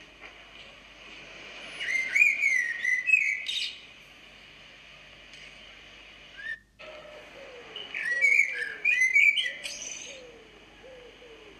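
Bird song: two bursts of quick chirps and whistled gliding notes, about two seconds in and again about eight seconds in, with fainter lower falling notes around the second burst.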